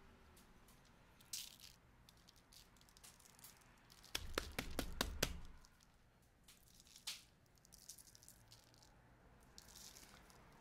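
Coarse black pepper rattling in a shaker bottle as it is shaken over raw steaks: a quick burst of sharp rattles about four seconds in, lasting just over a second, with a few lighter taps and a soft rustle of parchment paper around it.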